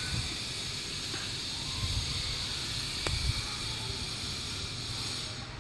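Outdoor background: a steady high-pitched hiss that cuts off suddenly near the end, over a low steady rumble, with one faint tick about three seconds in.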